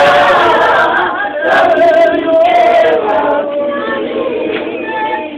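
A church congregation of men and women singing a hymn together as a choir, the many voices overlapping in bending melodic lines, loudest at the start and a little softer later.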